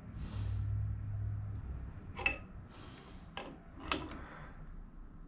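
A few light metallic clinks and clicks, three of them sharp, from tools and parts being handled at a milling machine, with a low rumble in the first second or so.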